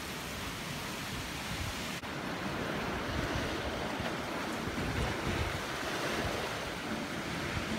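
Tropical-storm wind blowing across choppy harbour water, a steady rush of wind and waves with wind buffeting the microphone. The hiss turns slightly duller about two seconds in.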